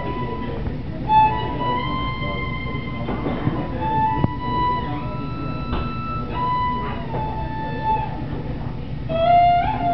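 Live violin, bowed, playing long held high notes with slides between them, dropping to lower notes near the end, over plucked upright bass and light drum hits from a small band.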